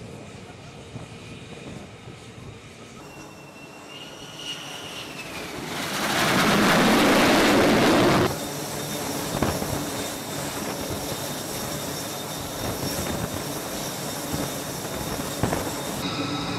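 F-35C jet engine noise on a carrier flight deck: a high whine swells and bends down, then a loud jet roar for about two seconds cuts off sharply, followed by steadier engine noise with a thin whine.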